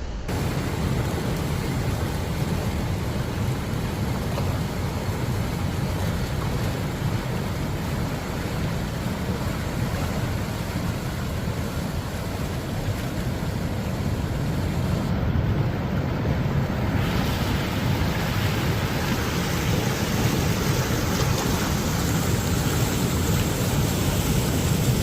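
Floodwater of a flash flood rushing down a wadi, a steady loud roar of water with a hiss that grows brighter about two-thirds of the way through.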